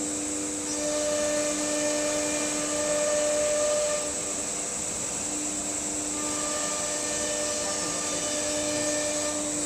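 STYLECNC S4 automatic nesting CNC router running: a steady whine from the spindle over the hiss of dust extraction, some of its tones dropping out and coming back every few seconds.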